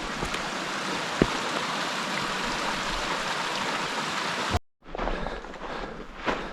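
A steady rushing hiss of running water that cuts off suddenly after about four and a half seconds. After a brief gap, quieter footsteps scuff on rock, about two a second.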